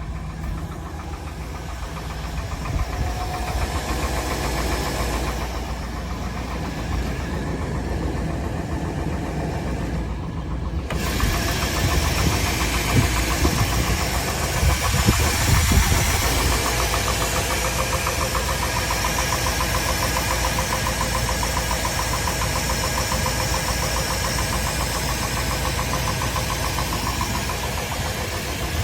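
K1500 pickup truck engine running with a knocking noise, which the owner asks about as either piston slap or a worn crank bearing. The sound gets louder and brighter about eleven seconds in, with a few louder peaks soon after.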